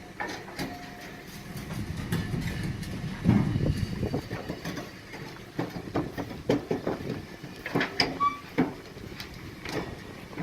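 A railway vehicle moving slowly: a low rumble that swells about three seconds in, with many irregular metallic clanks and knocks.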